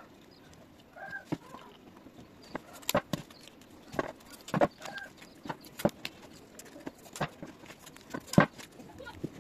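Irregular sharp clicks and crackles of plastic bottle caps wrapped in black electrical tape being handled and pressed. A chicken clucks a few times in the background, about a second in and again about five seconds in.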